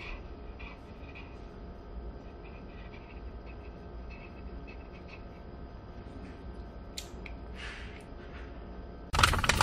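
Small white dog panting softly with its mouth open, over a low background hum; a sudden louder sound cuts in near the end.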